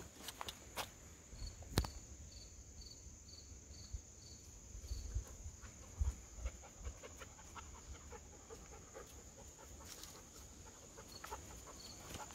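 Woodland insects: a steady high-pitched buzz, with a short run of about seven evenly spaced high chirps near the start. A few footsteps crunch on a dirt trail, the loudest about two seconds in.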